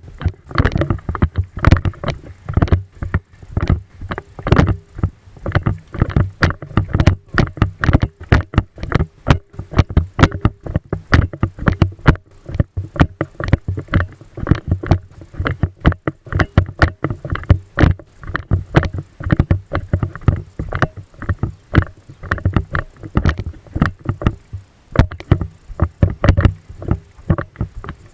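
Irregular knocks and thumps, several a second, from movement and gear jostling against a body-worn camera.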